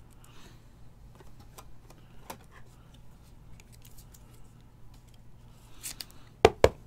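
A trading card and clear plastic card holders being handled: faint plastic rustles and light clicks, then two sharp taps close together near the end.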